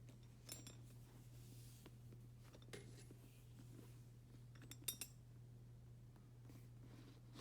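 Small objects being handled and set down, making a few light clicks and clinks; the loudest pair comes about five seconds in, over a steady low hum.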